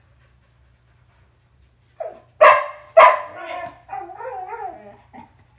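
A dog, quiet at first, gives two loud barks about half a second apart, starting about two and a half seconds in, then a whining, howl-like cry that wavers up and down in pitch for about a second and a half.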